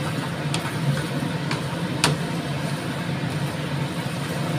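Wooden spatula stir-frying glass noodles and vegetables in a frying pan, with three sharp clicks of the spatula against the pan, the loudest about two seconds in, over a steady low hum and hiss.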